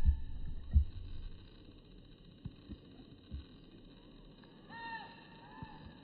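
A few low thumps in the first second, then a bird giving two short, arched calls about five seconds in.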